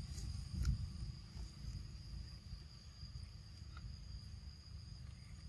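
Steady high-pitched drone of insects, over a low rumble, with a faint click about half a second in.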